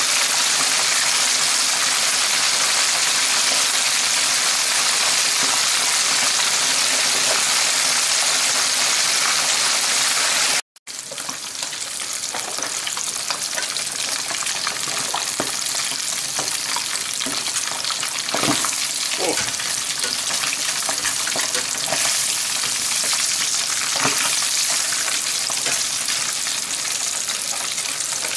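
Pieces of walking catfish frying in hot oil in a wok: a steady sizzle. After a brief break about eleven seconds in, the sizzle is a little quieter, with a few clicks of metal tongs turning the fish against the pan.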